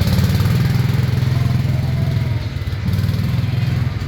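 A steady low mechanical rumble with a fast pulsing beat, like a motor or engine running.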